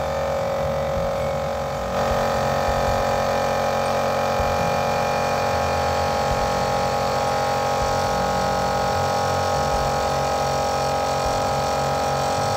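Izumi 3/4 HP 9-litre electric air compressor running steadily with a constant hum, pumping up its tank; it gets slightly louder about two seconds in.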